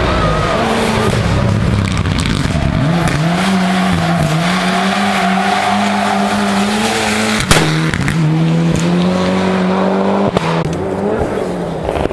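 Mitsubishi Lancer Evolution rally car's turbocharged four-cylinder engine running hard at high revs as it drives along a tarmac stage. A sharp bang comes about seven and a half seconds in, and a smaller one a few seconds later.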